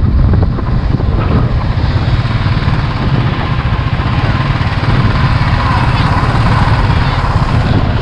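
Motorcycle engine running steadily at riding speed, with road and wind noise.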